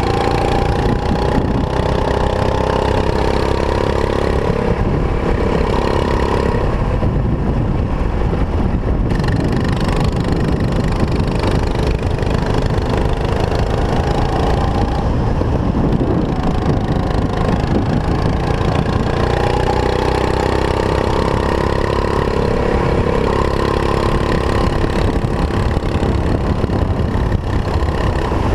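Racing kart engine running hard on track, rising in pitch twice as the kart accelerates out of corners, over heavy low wind rumble on the onboard microphone.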